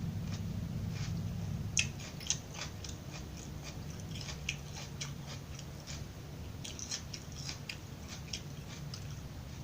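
Close-miked chewing of crisp raw vegetables: a quick run of sharp, crackling crunches, loudest a couple of seconds in, over a steady low hum.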